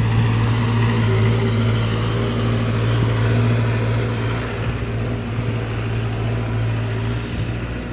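A motor vehicle's engine running steadily nearby, a low, even hum that eases slightly near the end.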